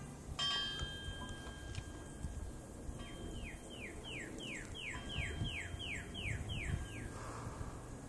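Northern cardinal singing a run of about ten clear whistles, each sliding down in pitch, at about two and a half a second; the song sounds like a car alarm. A short higher tone sounds about half a second in.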